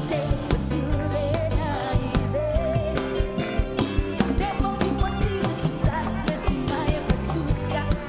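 A singer singing a Japanese pop song into a microphone over an upbeat pop-rock backing track with a steady drum beat.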